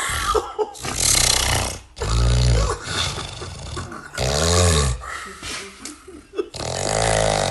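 A man snoring loudly in repeated rough snores, each one rising and falling in pitch, about every two seconds.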